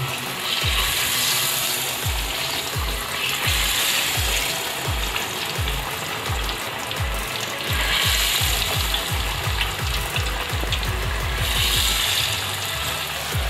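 Batter-coated potato slices deep-frying in hot oil in a kadhai: a steady sizzle that swells several times as more slices are dropped in. A repeating low thud runs underneath and quickens past the middle.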